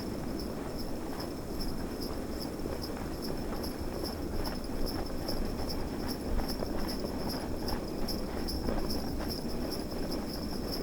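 Sleigh bells jingling in a steady rhythm, about four shakes a second, with horse hooves clopping as a sleigh is pulled, over the steady low rush of snowstorm wind.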